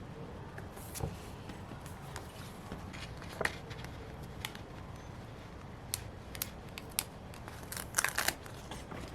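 Paper, stickers and tape being handled while decorating a planner page: scattered small crinkles and clicks, with a quick run of several near the end.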